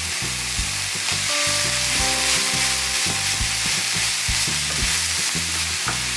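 Shredded chicken and a sofrito of pepper, onion and garlic sizzling in oil in a nonstick frying pan while being stirred with a wooden spoon, a steady frying hiss. Low background music notes play underneath.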